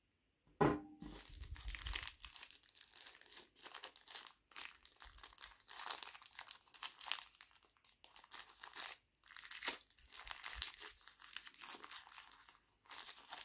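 Packaging being crinkled and rustled as it is handled and unwrapped by hand. It starts with a sharp knock about half a second in and goes on with a few short pauses.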